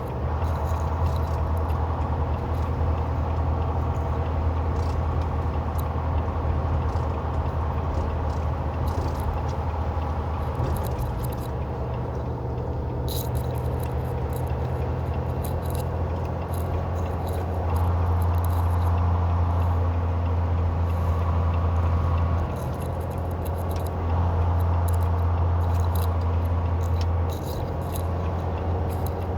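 Semi truck's diesel engine heard from inside the cab, a steady low drone while driving. It swells louder twice for a few seconds in the second half, and small rattles tick in the cab.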